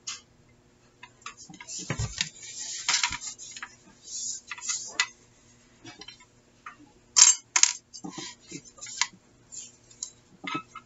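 Paper rustling and scraping as a folded sheet of cardstock is handled and pressed flat by hand on a cutting mat, in irregular bursts. There is a dull thump about two seconds in and two sharp clicks a little after seven seconds in; the clicks are the loudest sounds.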